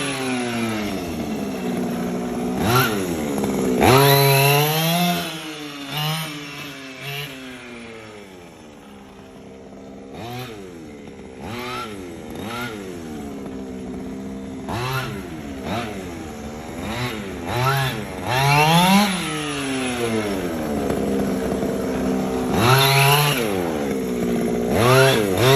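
Losi 5ive-T 2.0's small two-stroke gas engine being blipped again and again during its break-in run, its pitch climbing and dropping back with each throttle stab. It gets quieter for a few seconds around the middle, then the revving returns.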